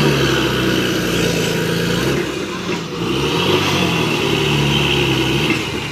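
Heavy diesel engine revving up and falling back again and again, its pitch rising and dropping every couple of seconds, as it strains to free a loaded truck stuck in mud.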